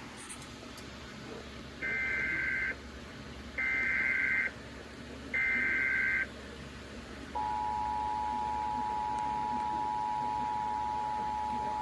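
Emergency Alert System SAME data header: three short bursts of warbling two-pitch data tones about 1.7 s apart. About seven seconds in, the steady two-tone EAS attention signal begins; together they announce a relayed warning.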